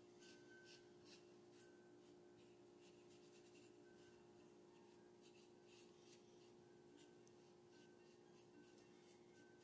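Faint rubbing of a cloth over a carved wooden figurine, in short irregular strokes as polish is worked into the wood, over a steady hum.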